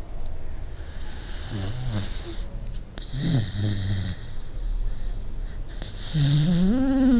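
Dog snoring in its sleep: a series of wheezy, pitched snoring breaths, the last one about six seconds in louder and longer, its tone rising.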